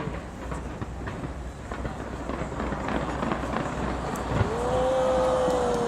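Crowd noise on a busy street, a jumble of voices, with a long held note starting about two-thirds of the way in that bends up, holds and sinks away near the end.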